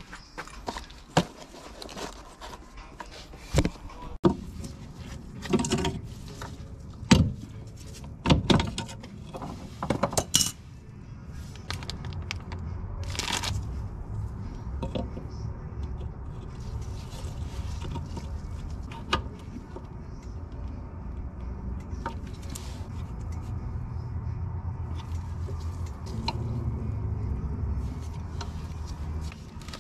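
Metal brake parts and hand tools clinking and knocking as they are picked up and handled. There are a dozen or so sharp clicks in the first ten seconds, then lighter handling noises over a low steady hum as a new wheel cylinder is fitted to the drum-brake backing plate.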